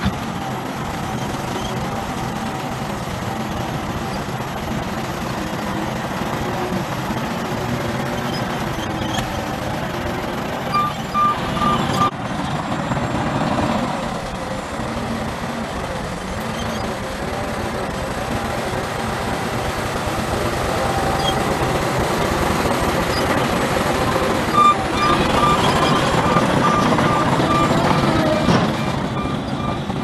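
Heavy diesel engines of a Shantui crawler bulldozer and a tipping dump truck running steadily as the dozer pushes earth. A reversing alarm beeps in a short run about 11 seconds in and again in a longer run near the end, roughly two to three beeps a second.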